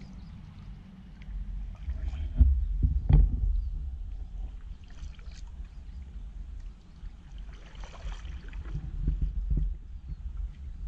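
Stand-up paddleboard paddle strokes swishing and splashing in calm water, over a steady low rumble. Two sharp knocks a little over two and three seconds in are the loudest sounds.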